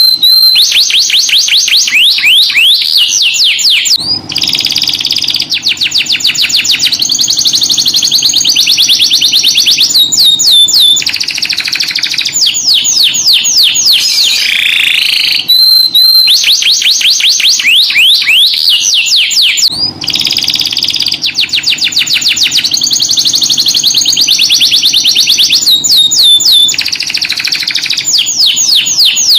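Canary singing a loud, unbroken song of rapid trills and rolling phrases, with fast runs of repeated notes and sweeping whistles between them. The same sequence of phrases comes round again about every 15 seconds, as a looped lure recording for training other canaries.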